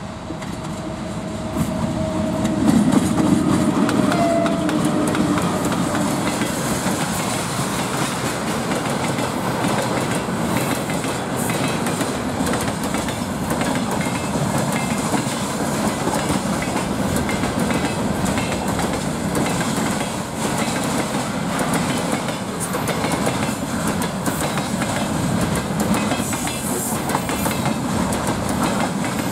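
VL10U electric locomotive passing at the head of a freight train, with steady tones from the locomotive rising to a peak about three seconds in. A long string of freight wagons then rolls past, tank cars, a flat car, a boxcar and container flats, with continuous wheel-on-rail noise and many small clicks.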